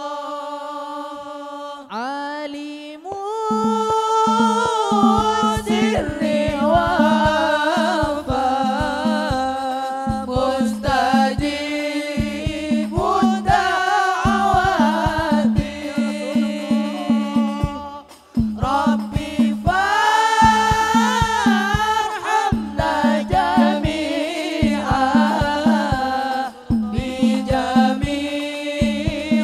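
Devotional Arabic sholawat sung in a melismatic, wavering line, with drums struck in a quick, steady rhythm entering about three seconds in; the music breaks off briefly about two-thirds of the way through, then goes on.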